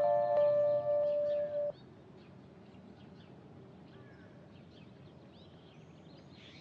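A descending run of held musical notes ends abruptly about a second and a half in. Faint birdsong, short chirps over a soft outdoor background, continues after it.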